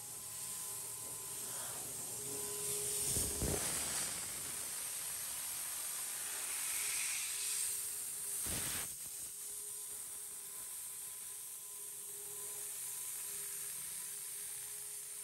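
Steady hiss of coolant water spraying over a wet marble slab on a CNC stone machining center, with a faint steady machine hum beneath. Two louder rushes of spray come about three and a half and eight and a half seconds in.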